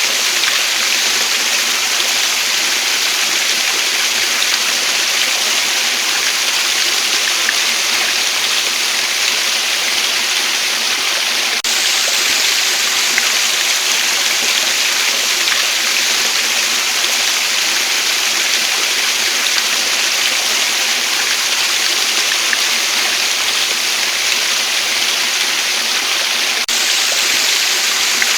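A waterfall making a steady, even rush of falling water, mostly a bright hiss. The sound shifts slightly twice, with a faint click at each point.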